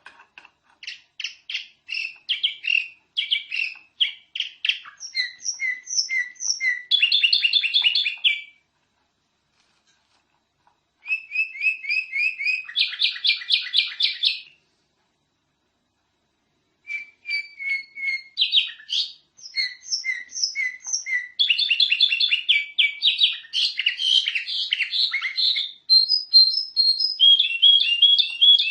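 Domestic canary singing a long, rapidly trilled song of repeated chirps and rolls, broken by two short pauses of a couple of seconds.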